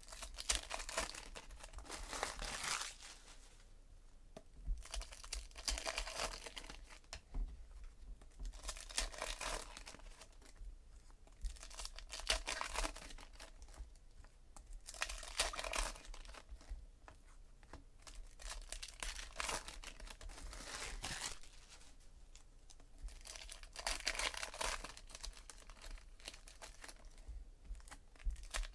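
Trading-card pack wrappers being torn open and crinkled, with cards handled between them, in rustling bursts every few seconds.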